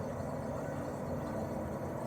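Daikin R28RMV mini-split outdoor unit running steadily in cooling mode: its twin swing compressor and propeller fan give an even low hum.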